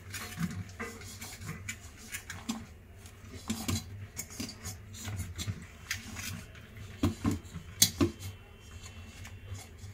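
Terry towel being pressed and tucked into an aluminium pressure cooker: cloth rustling, with scattered light knocks and clinks against the metal pot, the loudest a few pairs of knocks about seven to eight seconds in.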